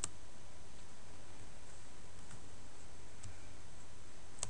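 Computer mouse clicks: one at the start, a few faint ticks in the middle and a sharper click near the end, over a steady background hiss.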